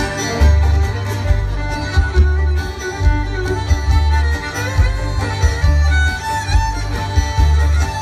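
Live bluegrass band playing, a fiddle carrying the melody over banjo, mandolin and guitar, with strong upright bass notes pulsing underneath.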